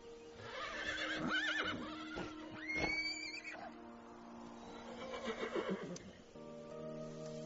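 A horse whinnying three times, wavering calls with the highest about three seconds in, over soft sustained background music.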